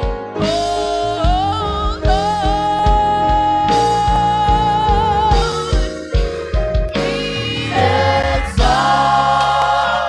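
A woman singing a gospel song solo into a microphone over live band accompaniment with a steady drum beat. About two seconds in she holds one long note with vibrato for about three seconds.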